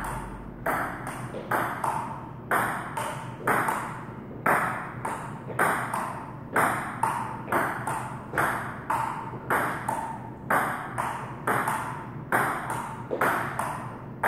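Table tennis ball in a long, steady rally, alternately struck by rubber paddles and bouncing on a Donic table: sharp clicks, each with a brief ring, about two a second without a break.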